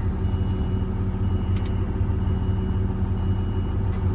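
Miller EnPak truck-mounted power unit's engine running steadily just after being started, a low even rumble. A faint high tone comes and goes over it.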